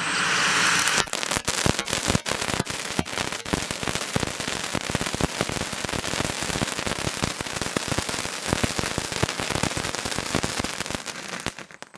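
Vanitha Golden Duck novelty ground firework: a brief hiss, then dense, rapid crackling with many sharp pops for about ten seconds, which stops abruptly just before the end.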